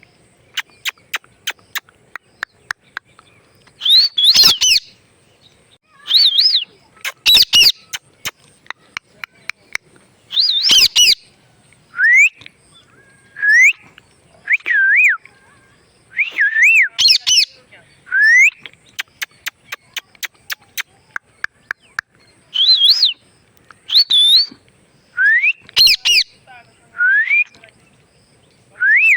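A pet parrot making a string of short swooping, wavering whistles and a few harsh screechy calls, with runs of rapid sharp clicks between them.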